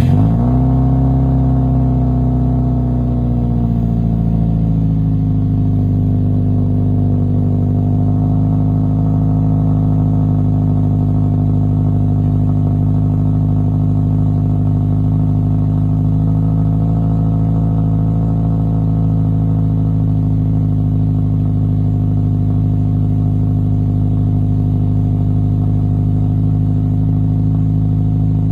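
Subaru WRX STI's turbocharged flat-four engine idling through an aftermarket twin shotgun muffler just after a cold start. The engine speed eases down over the first few seconds from the start-up flare, then settles into a steady idle.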